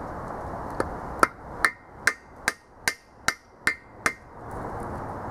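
Hammer driving a freeze plug driver, seating a new expansion plug into a small block Chevy 350's engine block: nine sharp blows at an even pace of about two and a half a second, each with a brief ring.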